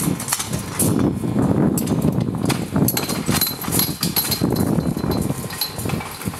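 Irregular knocks of a Valley-Walk aluminium tube-and-mesh cage being handled and taken apart, over a steady low rumble.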